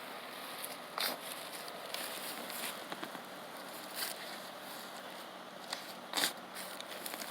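A spade shovel cutting into St. Augustine grass sod, with three short crunching strikes about a second in, at about four seconds and, loudest, near the end, as the blade chops through the turf and roots.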